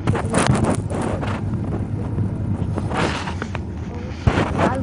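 Phone microphone being handled and rubbed inside a car: irregular muffled rustles and bumps over a steady low rumble.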